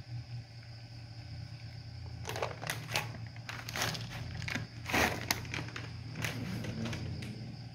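A plastic cat-food bag crinkles and rustles in the hand as dry kibble is shaken out onto a concrete floor. The rustling comes in a run of sharp strokes starting about two seconds in, is loudest around the middle, and dies away near the end.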